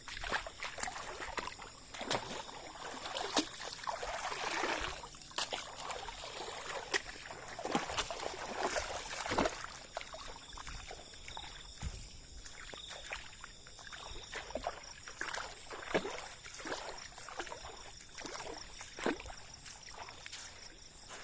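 Water splashing and sloshing irregularly, with scattered sharp knocks and clicks, as of someone moving through shallow water.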